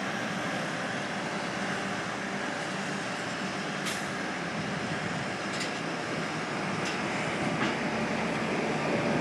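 Steady mechanical rumble of heavy diesel trucks running, among them the wrecker working its crane boom, with a few faint metallic clicks.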